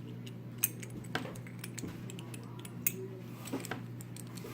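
Scattered light metallic clicks and taps from a Master Lock Jeep spare tire lock, a small 4-pin wafer lock, being handled with lock picks, over a steady low hum.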